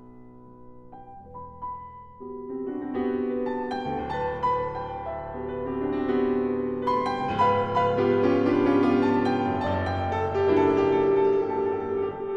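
Background piano music, soft for the first two seconds and then fuller and louder.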